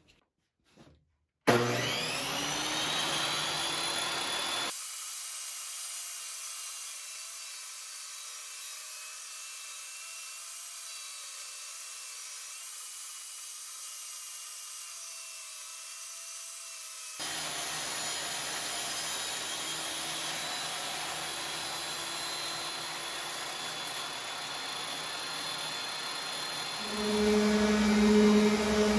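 Benchtop table saw switching on with a rising whine, then running steadily while a length of baseboard trim is ripped through the blade. Near the end an electric orbital sander starts with a louder steady hum.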